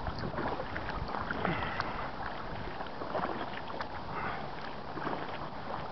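Kayak paddle strokes splashing in river water, with drips and water lapping at an inflatable kayak's hull, as the paddler pulls harder against a strong current.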